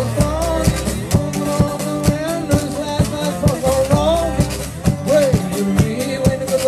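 A man singing a folk-blues song to his own acoustic guitar, which is strummed hard in a steady rhythm with a sharp accent about twice a second.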